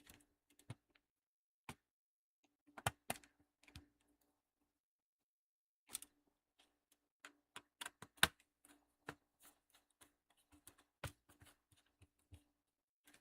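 Irregular clicks and snaps of an HP laptop's plastic bottom case being pressed back into place and handled while it is screwed down, with the loudest clusters about three seconds in and around eight seconds.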